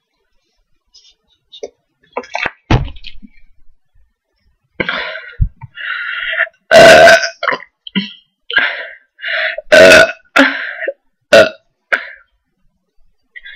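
A person burping loudly after drinking lots of cola: a run of about eight burps, some short and some drawn out, starting a few seconds in. The two loudest come about three seconds apart.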